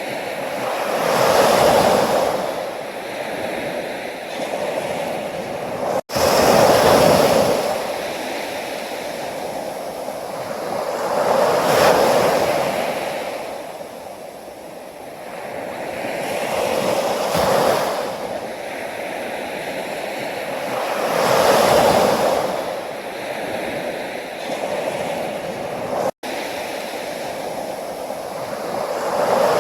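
Sea waves breaking and washing up a shore, a surge every five seconds or so over a steady rush of surf. The sound cuts out for an instant twice.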